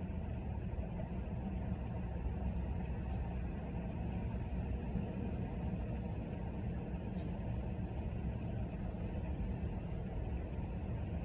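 Steady low rumbling noise with no breaks, the kind heard from a moving car's cabin or from wind on a microphone.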